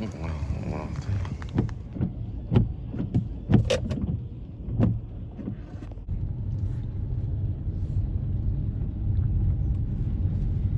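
A run of knocks and clicks, then about six seconds in a car's steady low rumble starts and keeps going.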